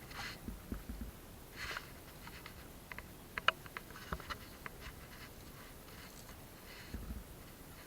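Scattered light clicks and taps, with a few short rustles and soft low thumps, like something being handled at close range.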